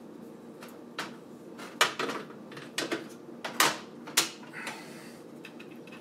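Hard plastic clicks and knocks of a PCIe power cable's 6-pin connector being handled and pushed into a graphics card's power header inside a PC case. About half a dozen irregular clicks, the loudest about three and a half seconds in.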